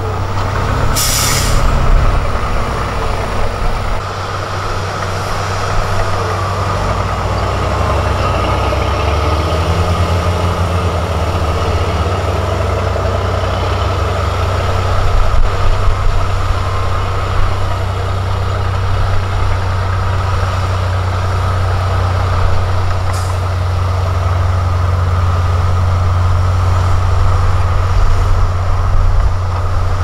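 Diesel engine of heavy earthmoving equipment running steadily with a deep drone, with a short hiss of air about a second in and another, fainter one near the end.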